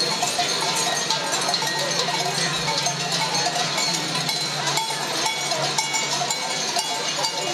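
Glöckler runners' large waist bells clanging continuously as the group jogs past. Many bells ring at once in a dense, unbroken jangle.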